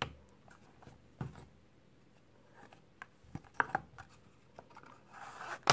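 Handling noise: a few scattered light clicks and taps, with a short rustle near the end.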